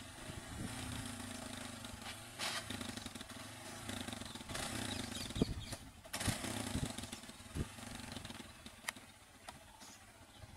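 Auto-rickshaw's small engine running, revving up and down unevenly, with a few sharp knocks; the engine noise drops off about eight seconds in.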